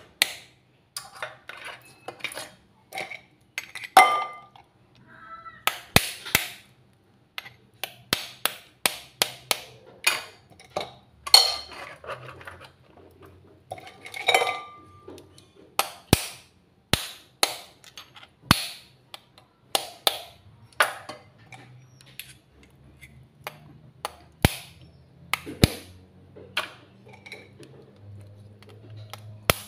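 Mud crab claws being cracked with a metal spoon: a long run of sharp, irregular knocks and cracks, a few ringing briefly like metal striking a steel pot.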